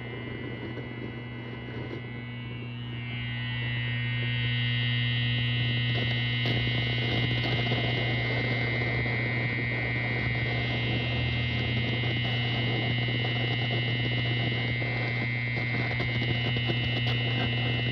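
Steady mains hum from a new Mesa Boogie Mark V guitar amplifier idling with no guitar playing, with a higher whine on top that swells and fades. It grows louder about four seconds in. The owner reports this hum as a fault in the amp.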